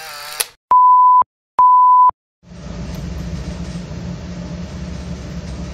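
Two loud, steady electronic beeps of one pure pitch, each about half a second long and about a third of a second apart, at the end of the intro. About two and a half seconds in, a steady low hum with light hiss begins and runs on.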